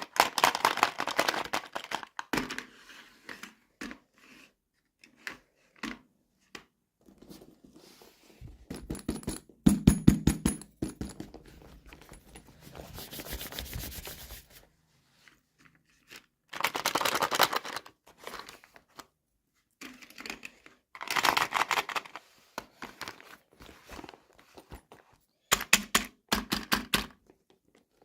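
Toy packaging being opened by hand, close up: plastic and paper crinkling and tearing in irregular bursts, with sharp clicks and taps from small plastic pieces.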